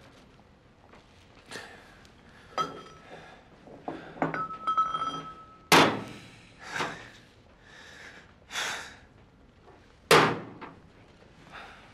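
A heavy pestle slammed down hard several times, giving sharp thuds. The two loudest come about four seconds apart, with lighter knocks and a brief ringing between. Heavy, strained breaths fall between the blows.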